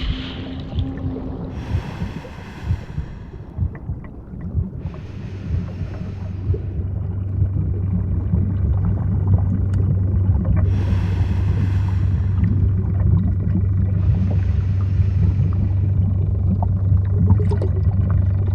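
Underwater diving ambience: a steady low rumble with crackling, and a scuba diver's regulator breathing four times, with hissing breaths a few seconds apart that alternate between a brighter inhale and a duller exhale of bubbles. The rumble grows louder in the second half.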